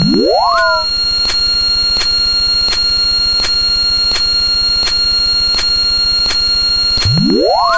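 Loud, harsh synthesized sound effects: a steady electronic buzz with shrill high whistling tones and a sharp click about every 0.7 seconds. A rising pitch sweep comes right at the start and again near the end.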